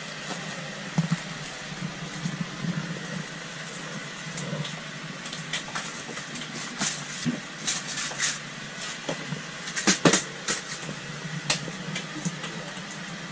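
Rummaging through a plastic tackle box for a split ring: scattered light clicks and rattles of small parts, with a sharper cluster of clicks about ten seconds in, over a steady low hum.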